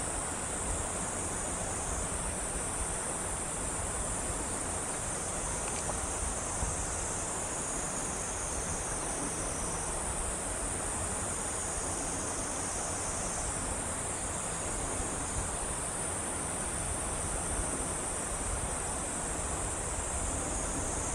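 Insects calling in a steady high-pitched chorus, with a continuous low rushing noise beneath.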